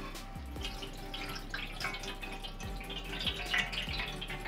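Rice being washed by hand in a steel pot of water in a steel sink: water splashing and dripping as the grains are swished, with the cloudy rinse water tipped out near the end.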